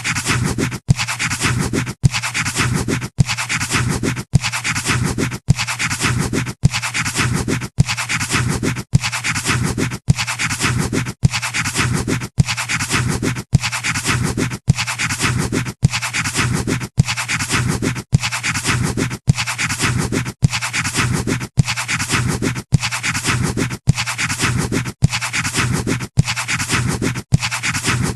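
Pencil scratching on paper, a stroke of about a second repeated over and over with a brief gap between each, as an even looped sound effect.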